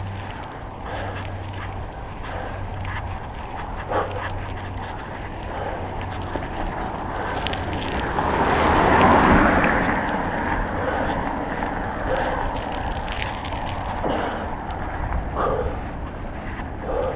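Wind rushing over the action camera's microphone as a bicycle rides along a wet road, with tyre noise and small clicks and rattles from the bike. A louder rushing swell builds and fades about eight to ten seconds in.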